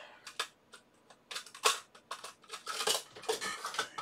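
Hard plastic parts boxes and small components being handled on a workbench: a run of irregular clicks and light clattering, with a few sharper knocks.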